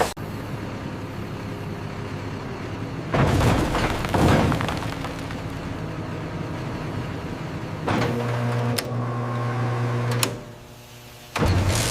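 Wood-processing machinery running with a steady mechanical hum and whir. Two louder, noisier surges come about three and four seconds in, then a steady motor hum. The sound drops away sharply a little after ten seconds and comes back in full just before the end.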